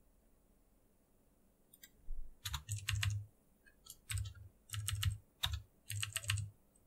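Typing on a computer keyboard: short runs of quick keystrokes starting about two seconds in.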